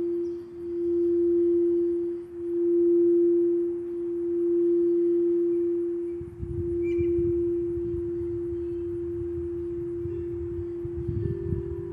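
Quartz crystal singing bowl ringing with one sustained tone that swells and fades about every two seconds, then holds steady from about halfway. A second, slightly higher bowl tone joins near the end, over a low rumble.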